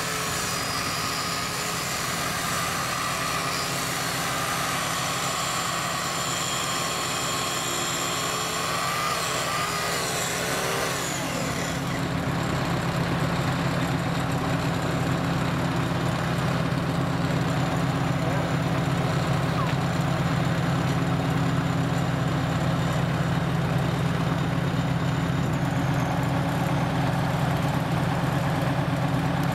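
Case 350 crawler dozer's engine running steadily. About twelve seconds in it gets louder and fuller, with a higher wavering whine over it before that point.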